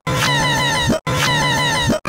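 Looped, heavily processed meme-edit audio: the same roughly one-second snippet plays twice, each loop cut off by a brief dropout. Each loop has rows of short falling chirps high up and ends in a rising glide.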